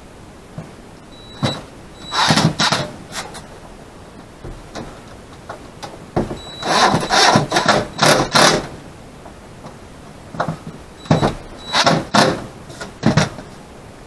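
Cordless drill driving screws into wood in three short runs of a couple of seconds each, the motor's high whine briefly heard as each run starts.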